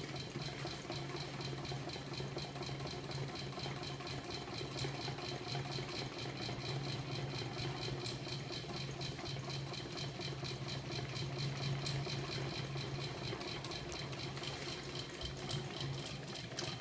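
Small battery-wired electric motor and spinning magnet rotor of a homemade magnet-motor rig running steadily: a constant low hum with a fast, even ticking.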